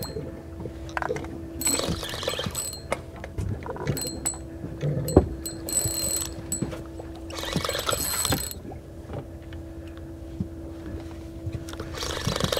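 Spinning fishing reel being cranked in, with repeated clicks from the reel and several roughly one-second surges of hissing. A steady low hum runs underneath and stops near the end.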